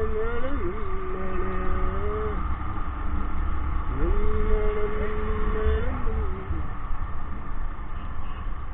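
Steady low rumble of wind and motorcycle riding noise, with a man's voice holding two long sung notes: the first slides down and fades about two seconds in, the second rises in about four seconds in and fades out about two and a half seconds later.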